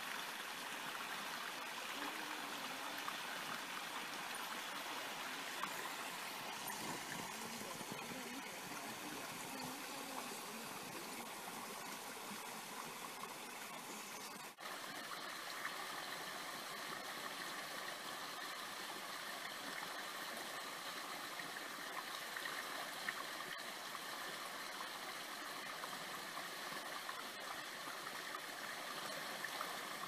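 Small creek running: water spilling over rocks into a pool, a steady rush, with a brief dropout about halfway through.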